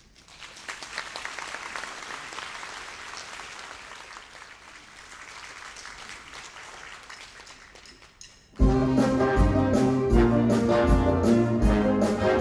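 Audience clapping for about eight and a half seconds, then a big band comes in loud: trumpets, trombones and saxophones playing together over drum kit and bass, with strong drum hits.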